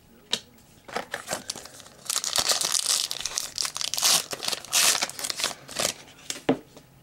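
Trading card pack wrapper being torn open and crinkled by hand. A few light handling clicks come first, then dense crinkling from about two to six seconds in.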